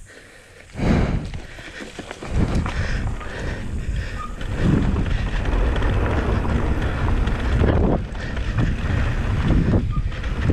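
Wind rushing over the helmet or chest camera's microphone, with the low rumble of a Canyon Spectral 29 mountain bike's tyres rolling over a dirt trail. The noise swells about a second in and runs on steadily from about two seconds in.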